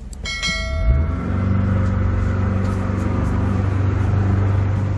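A short electronic chime as the ignition is switched on, then the Mercury F150 four-stroke outboard on its jet drive starts about a second in and settles into a steady idle.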